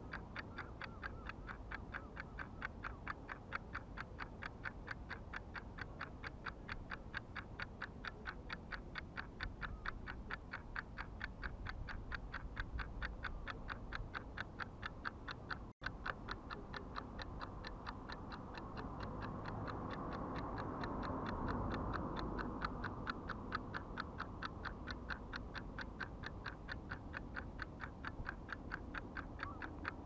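A steady run of rapid, evenly spaced ticks. A low rushing sound swells up for a few seconds just past the middle.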